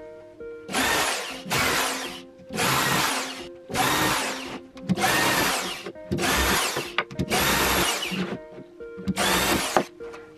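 Bosch corded power drill boring holes into plywood through a drill guide, run in a series of about eight short bursts, each under a second, its motor whine rising and falling with every burst. Light ukulele music plays underneath.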